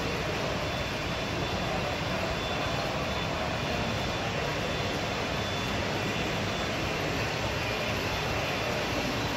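Steady rushing background noise of a large exhibition hall, holding at a constant level throughout with no distinct events.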